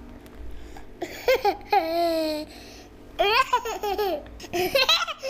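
A toddler laughing and squealing in high-pitched bursts, about a second in, again around three seconds, and once more near the end. One held squeal slides down in pitch.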